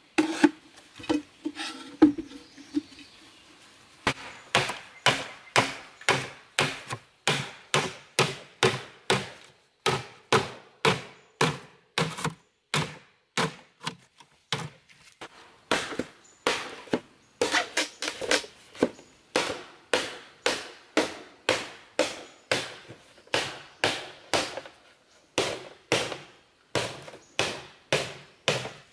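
Heavy knife blade chopping into green bamboo again and again, about two strikes a second, cutting lengthwise slits to split the culms into strips. The chopping pauses briefly a couple of seconds in, then keeps going steadily.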